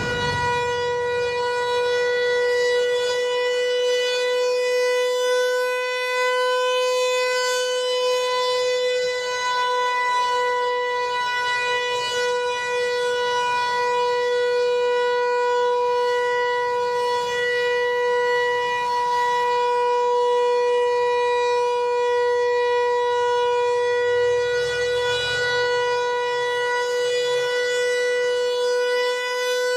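Federal Signal Equinox electronic outdoor warning siren sounding a steady alert tone for a routine monthly test. The pitch holds steady, with no rise or fall.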